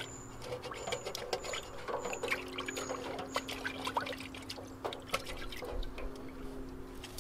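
Water sloshing and trickling in a metal cooking pot as it is tipped and rinsed out, with many small irregular clinks and splashes.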